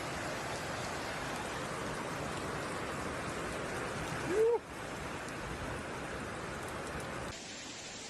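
Steady hiss of heavy rain and running water. About four and a half seconds in comes a short, loud rising call.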